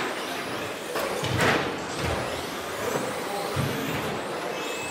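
Several 1/10-scale 2WD electric RC trucks with 10.5-turn brushless motors racing, their motor whines rising and falling over a steady wash of tyre and drivetrain noise. A few low thumps come through, the loudest just over a second in.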